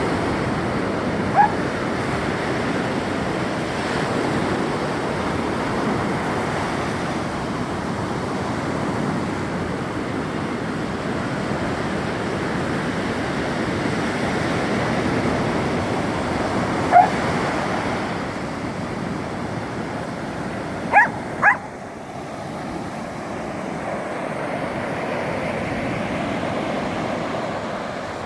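A corgi giving four short, high barks, one near the start, one a little past the middle and two in quick succession about three-quarters through, over a steady rush of ocean surf and wind.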